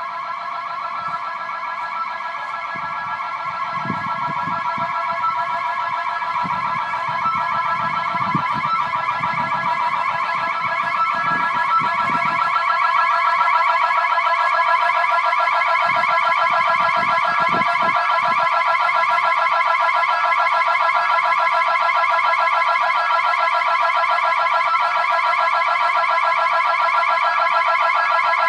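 Building security alarm sounding without a break: a fast-warbling electronic tone made of several steady pitches. It grows louder over the first dozen seconds, then holds steady.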